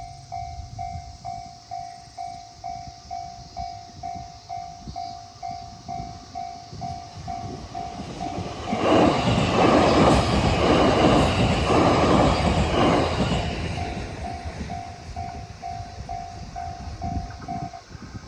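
Japanese level-crossing warning bell ringing about twice a second as a Shinano Railway train approaches. About halfway in, the train passes close by with loud, rhythmic wheel clatter that drowns the bell for several seconds. The bell carries on after the train has gone and stops shortly before the end, the sign that the crossing is clearing.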